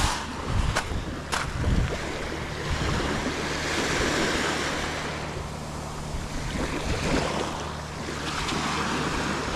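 Small waves washing up onto a beach, the surf swelling twice and falling back. In the first second or so, a few footsteps crunch on pebbles.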